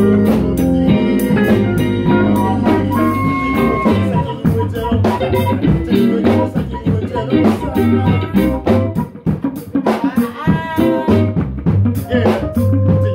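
A live band playing an instrumental groove with a steady drum-kit beat, low bass notes and electric guitar lines over it.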